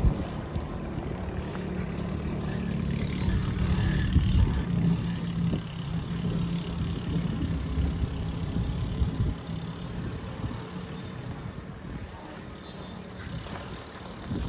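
A motor vehicle's engine running on the street: a steady low hum that fades away after about nine seconds.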